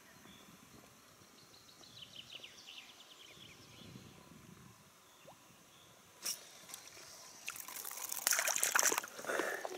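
A spinning reel ticks faintly while the lure is wound in. About seven and a half seconds in, a hooked fish thrashes and splashes loudly at the river's surface for a second or two.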